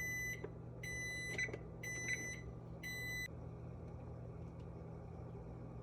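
Kitchen appliance beeping four times, about one long beep a second, over a steady low hum; the pattern fits a microwave oven's signal tones.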